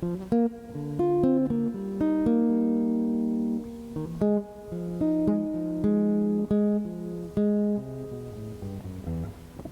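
Yamaha SLG-100NW nylon-string silent guitar being played: a melody of plucked single notes and short held notes, some ringing on for about a second.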